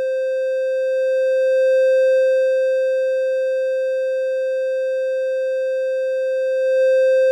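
Steady synthesizer tone from FL Studio's Sytrus, held on one note, panned from the left channel to the right to demonstrate a stereo difference in amplitude between the channels.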